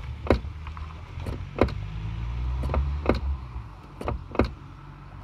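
Wind buffeting the microphone as a low rumble, with about a dozen sharp clicks at irregular spacing.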